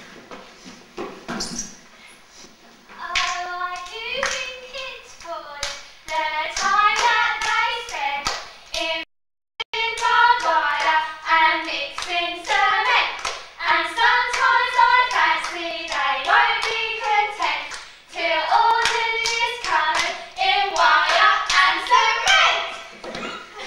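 Voices singing without accompaniment, with many sharp hand claps or slaps in among the singing. The sound cuts out completely for about half a second just after nine seconds in.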